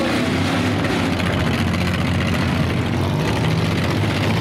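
Engines of several demolition derby cars running and revving together, a loud, steady, overlapping engine noise.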